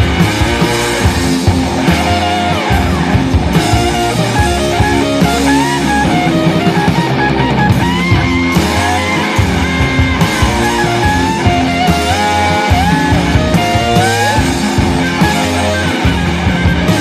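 Loud rock music with guitar playing a melodic lead line.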